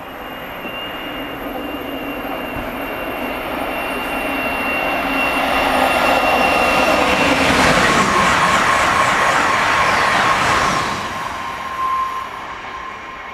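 Amtrak Alstom Avelia Liberty (Acela 21) high-speed test trainset passing through the station at full track speed, about 165 mph. A rushing rumble builds as it approaches, is loudest as it goes by, then drops off sharply near the end, and a high whine falls to a lower pitch as it passes.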